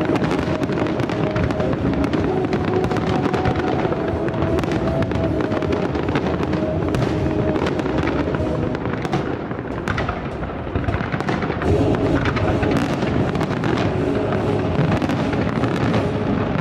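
Fireworks display: bangs and crackles in quick succession throughout, with music playing underneath.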